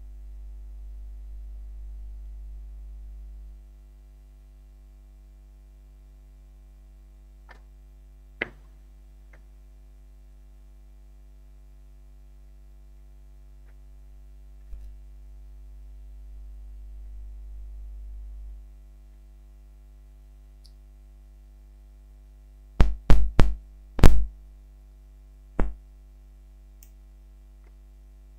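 Steady electrical hum with two stretches of low rumble, a sharp click about eight seconds in, and a quick cluster of loud knocks and clicks near the end.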